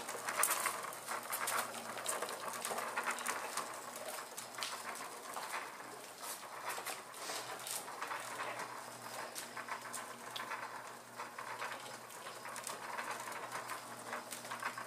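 Home-built wooden power-wheel rig running, driven by a small bench grinder through a rubber-edged friction wheel: a faint steady motor hum under constant irregular clicking and rattling. The PMA generator on its output is shorted, so the rig is running under load.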